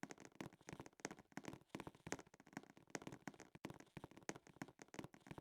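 Near silence with faint, irregular clicks and crackles, several a second.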